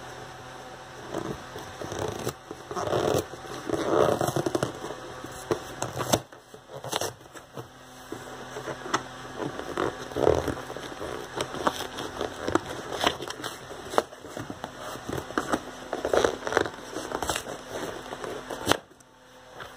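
Cardboard beer case being handled and opened: flaps rubbing and crackling, with scattered sharp clicks and knocks, over a faint steady hum.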